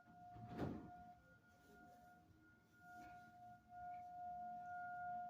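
Federal Signal 2001-SRNB rotating tornado siren sounding a steady single tone, faint and distant, dipping in the first couple of seconds and swelling again as the rotating horn turns back toward the listener. A brief, louder noise close to the microphone about half a second in.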